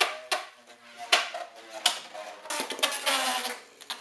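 Metal Beyblade spinning top clinking and rattling against a plastic Beystadium: a run of sharp clicks with brief ringing, busiest in the second half.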